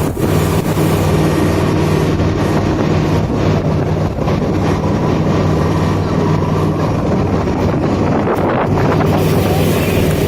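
Motorboat engine running steadily underway, with wind buffeting the microphone.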